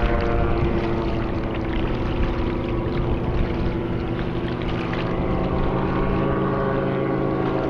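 Airboat engine and propeller running at a steady pitch, a continuous drone, with wind buffeting the microphone.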